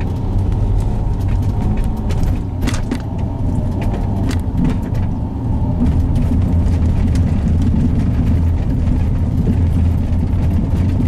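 Car interior noise while driving: a steady low rumble of engine and road, with a scattering of light clicks and rattles.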